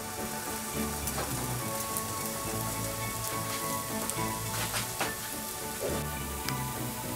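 A flat round of bread dough sizzling as it fries in hot fat in a pan: a steady hiss with scattered small crackles. Soft background music plays underneath.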